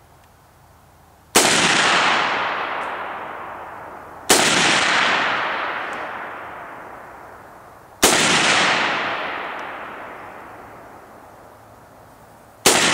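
Four single shots from a Chinese Norinco AK-47 rifle (7.62×39 mm), fired a few seconds apart: about a second in, at about four, at about eight, and near the end. Each is a sharp report followed by a long echo that fades over several seconds.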